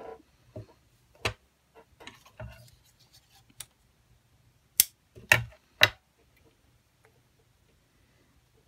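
Hands working scrapbook materials on a craft table: a few sharp clicks and taps, three of them close together about five seconds in, with soft paper rustling.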